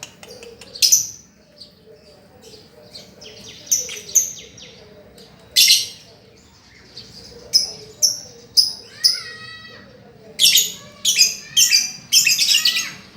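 Birds chirping: scattered short, shrill chirps, becoming dense, quick runs of chirps near the end.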